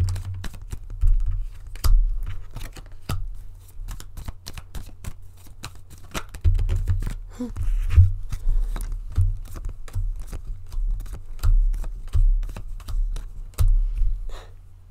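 Tarot cards being shuffled and handled: a long run of quick, irregular clicks and snaps of the cards, with dull low thumps from handling the deck.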